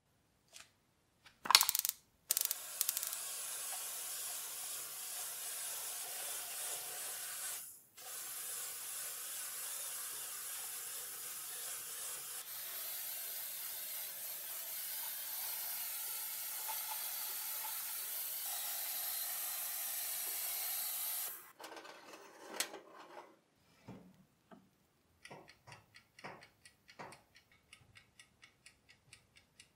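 Aerosol spray can spraying in two long, steady hissing bursts, broken briefly about eight seconds in. A few sharp clicks come before it, and scattered light ticks follow after it stops.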